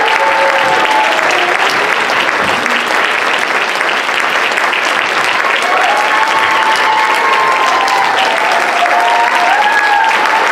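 Audience applauding steadily and loudly at a curtain call.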